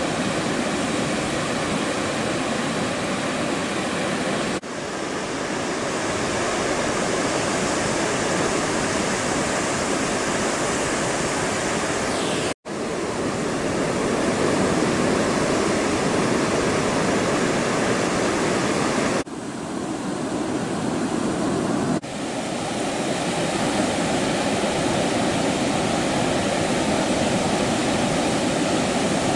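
Ocean surf breaking on a beach: a steady roar of waves and whitewater. The sound shifts abruptly a few times and cuts out for an instant about halfway through.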